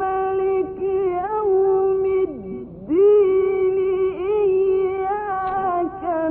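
A single voice humming a wordless, ornamented melody in Arabic maqam style, mostly holding one note with small turns and slides around it. The voice slides down and breaks off briefly about two and a half seconds in, then picks the note up again.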